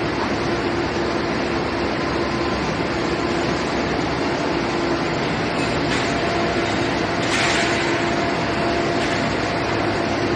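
Steady industrial drone of an aluminium billet homogenizing furnace and its plant machinery, with a constant low hum running through it. A short hiss comes a little past seven seconds in.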